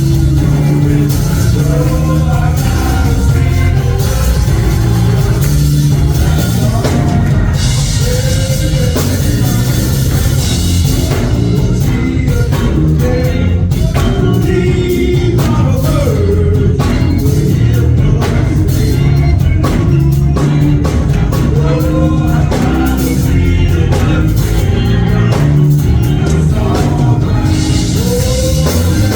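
Gospel praise music from a church band, with drums and a heavy bass line, and singing over it.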